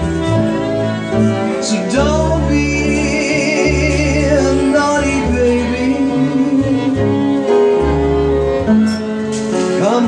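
Instrumental break of a jazz ballad. A violin plays the melody with vibrato over upright piano and plucked upright bass.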